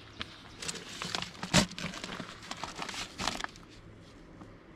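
Papers being handled and rummaged through by hand, rustling and crinkling, with one sharper tap about one and a half seconds in.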